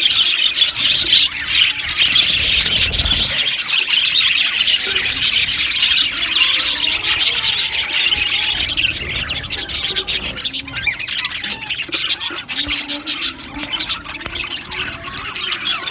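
A colony of budgerigars chattering and chirping together, a dense, continuous mass of overlapping warbles and short squawks.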